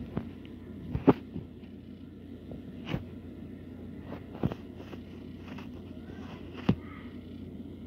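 Several sharp taps and clicks spread out over a low steady hum, the loudest about a second in.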